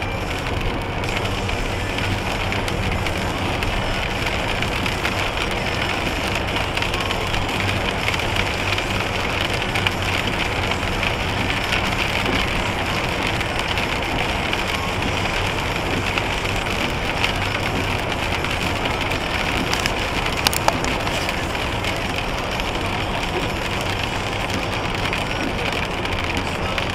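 Steady road and tyre noise heard from inside a car's cabin at motorway speed, about 120 km/h, on a wet road, with a low engine hum underneath. A couple of sharp ticks stand out about twenty seconds in.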